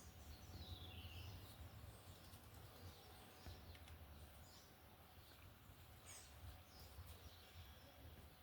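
Near silence: low background rumble with a few faint bird chirps, one falling in pitch about a second in.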